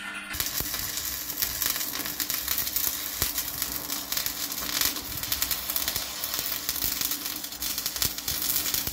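Electric arc welding on a steel square-tube frame: the arc's steady crackling sizzle, starting a moment in.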